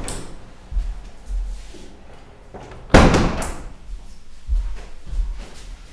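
A room window being shut: a loud bang about three seconds in as it slams closed, with a few softer knocks and thumps around it.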